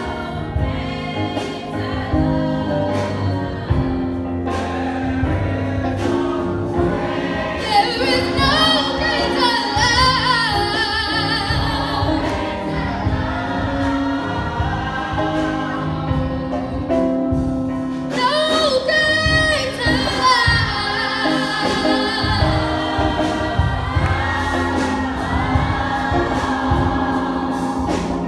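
Gospel music: a choir singing over an instrumental backing with a steady bass line.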